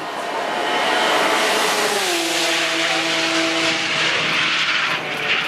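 Race car at full throttle passing close by. Its engine note drops in pitch as it goes past about two seconds in, then holds steady and fades as it draws away.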